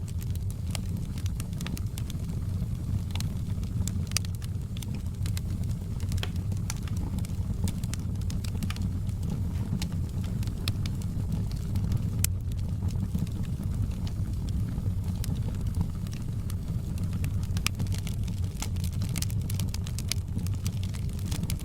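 Fire in a fireplace crackling: irregular sharp pops and snaps scattered over a steady low rumble of the flames.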